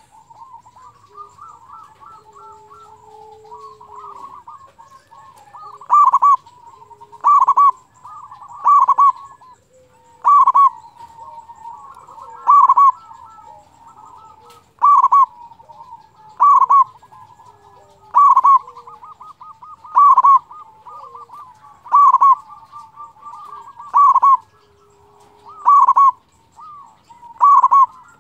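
Zebra dove (perkutut) cooing: soft, rolling coos at first, then from about six seconds in a loud, clear call note repeating every one and a half to two seconds over the softer cooing.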